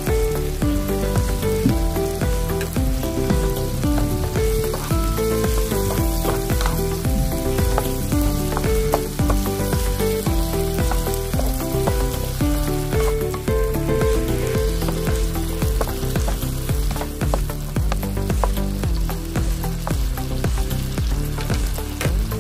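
Octopus adobo sizzling and simmering in a frying pan while a spatula stirs and scrapes through it. Background music with a melody over a bass plays throughout.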